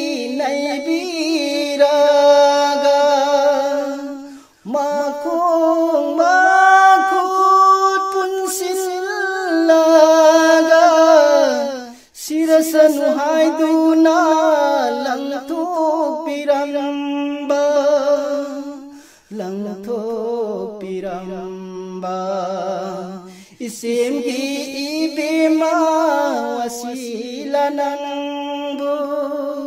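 A single voice singing a naat, an Islamic devotional song, without accompaniment: long held, ornamented notes in phrases separated by short breaths. A little past the middle the voice drops to a lower, wavering pitch for a few seconds.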